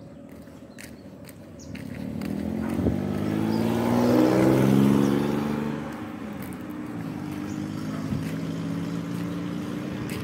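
Road traffic: a motor vehicle passes close by, its engine getting louder to a peak about four and a half seconds in and fading by six seconds. After that, a steady, quieter engine sound from traffic continues.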